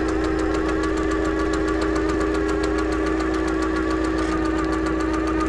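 Clockwork-machinery sound effect: a steady mechanical hum with a rapid, even ticking over it.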